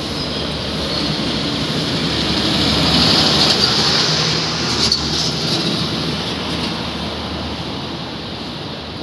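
Loud noise of a vehicle passing, swelling to a peak about three to four seconds in and slowly fading away.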